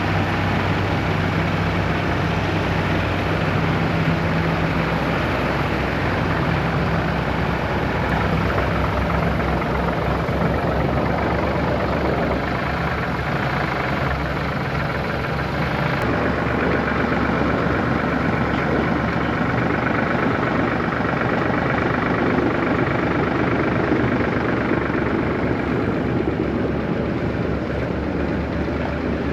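Massey Ferguson 4707 tractor's diesel engine running in deep cold, struggling, with fuel-pressure trouble that the owners treat as cold-affected fuel and filters.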